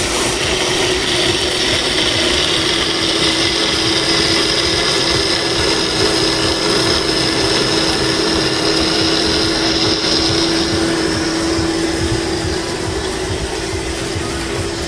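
Countertop blender motor running steadily at high speed, blending a coconut and fresh-milk smoothie. A steady hum runs throughout, and a high whine on top of it fades about eleven seconds in.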